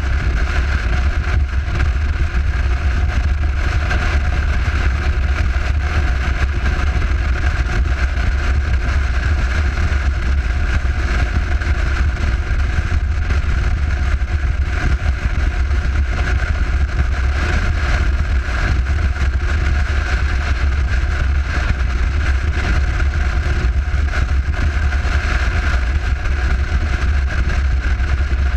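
Motorcycle cruising at a steady highway speed: a constant low rumble of wind on the microphone mixed with the engine's drone, with no change in speed.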